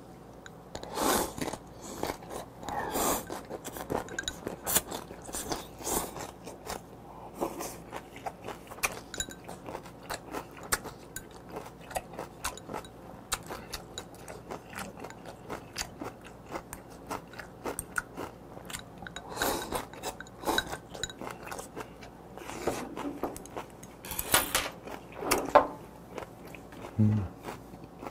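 Close-up eating of raw squid mulhoe: steady chewing and crunching of chewy squid and crisp, ice-cold vegetables, with a handful of louder slurps of the cold broth.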